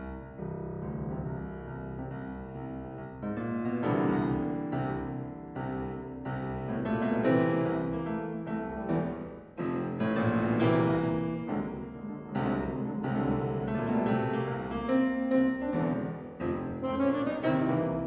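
Alto saxophone and grand piano performing a contemporary classical concerto, the piano most prominent with a dense run of accented chords. A long held note glides up and sustains near the end.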